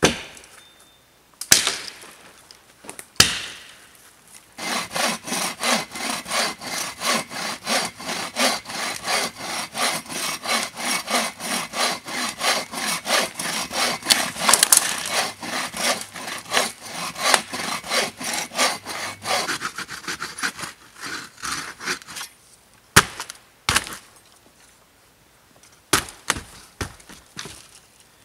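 Bow saw cutting through a fallen log with quick, even back-and-forth strokes for about fifteen seconds, then slowing and stopping. A few sharp knocks come before the sawing starts and again after it stops.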